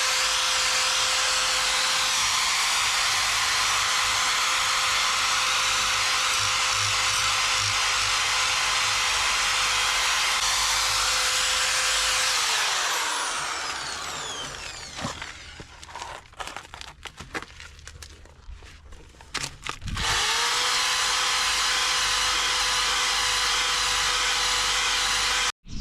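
Handheld power tool running steadily with a scrubbing hiss as it abrades and cleans a bronze boat propeller. It spins down about halfway through, with a few clicks and knocks, then starts up again and runs until it cuts off suddenly near the end.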